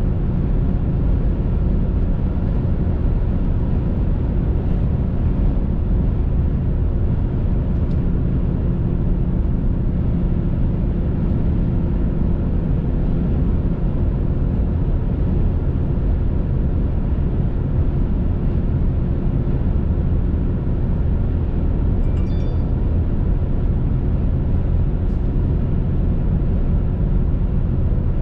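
Steady road noise of a car driving at highway speed, heard from inside the cabin: tyres, engine and wind blending into an even low rumble.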